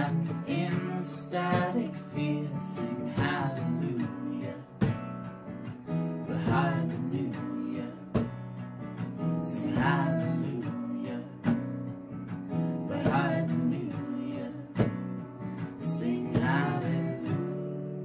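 Acoustic guitar strummed in a steady rhythm under a woman's singing voice, a folk song. Near the end the strumming stops and the last chord rings out and fades.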